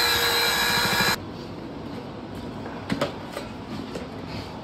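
Electric drill with a paddle mixer running in a bucket of drywall joint compound, a steady machine whir that cuts off suddenly about a second in. After it, a few light clicks and scrapes of a putty knife against the bucket and mud pan.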